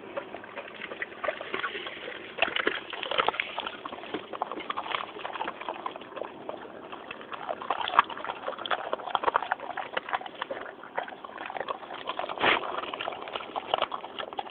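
English Mastiffs chewing raw chicken carcasses: steady, irregular wet crunching and cracking, with a few sharper cracks, the sharpest about eight seconds in.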